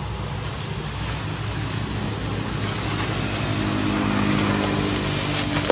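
Steady low engine drone, like a motor vehicle running nearby, growing stronger about three seconds in, under a steady high-pitched whine.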